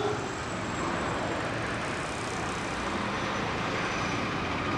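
Steady, even background din with no distinct events.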